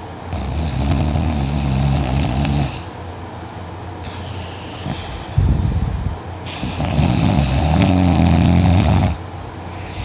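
A woman snoring very loudly in her sleep, deep and growling. Two long snores come about six seconds apart, with a short sudden sound between them.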